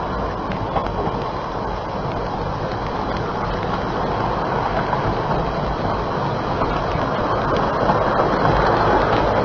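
Steady running noise of a narrow-gauge steam train, heard from on board one of its carriages as it travels along the line.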